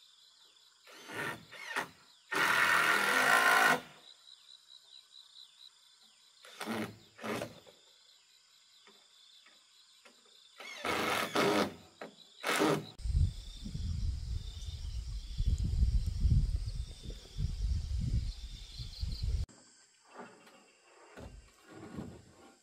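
Wooden roof boards being handled and laid on a bamboo frame: scattered knocks and a longer scrape of wood, over a steady chirr of insects. Past the middle comes a low, gusty rumble lasting about six seconds, which cuts off suddenly.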